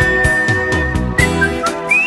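Background music: a high, whistle-like melody over plucked strings with a steady beat.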